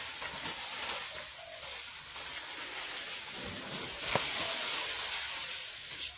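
Steady hissing jungle ambience with faint rustling of vegetation, and a single sharp snap a little after four seconds in.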